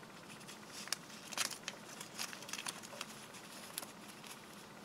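Faint rustling and tearing of newsprint foundation paper being picked away from the stitching of a paper-pieced quilt block, in a few short crinkles, the loudest about a second and a half in.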